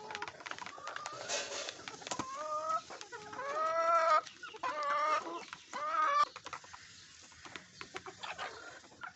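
Backyard hens clucking, a run of short pitched calls about two to six seconds in, with soft taps and clicks in between.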